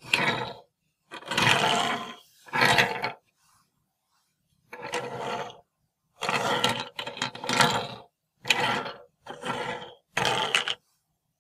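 Mattel Disney Planes Micro Drifters toy planes pushed by hand across a wooden shelf, the metal ball bearing in each base rolling along the wood. There are about nine short rolling runs, each lasting under a second, with gaps between them.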